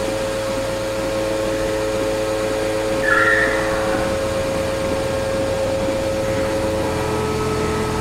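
Milking parlour machinery running during milking, a steady hum with several held tones. A brief high squeak about three seconds in.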